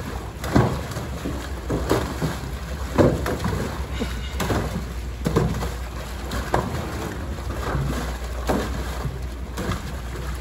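Polar bear thrashing about in its pool: irregular splashes and sloshing water roughly every second, over a steady low rumble.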